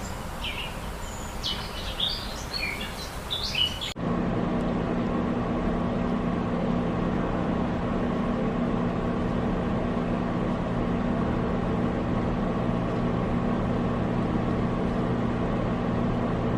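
Small birds chirping with short, high calls, cut off abruptly about four seconds in by a louder, steady mechanical hum made of several fixed tones, like a motor or engine running.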